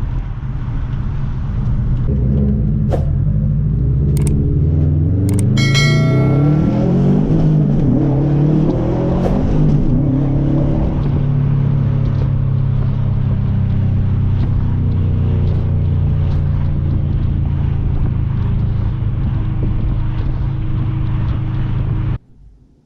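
Subaru WRX STI turbocharged flat-four running through an aftermarket cat-back exhaust: the engine note climbs in pitch for several seconds as the car accelerates, then holds a steady drone. It cuts off abruptly near the end.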